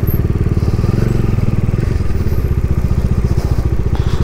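Bajaj Dominar's single-cylinder engine idling steadily, an even, rapid beat of firing pulses.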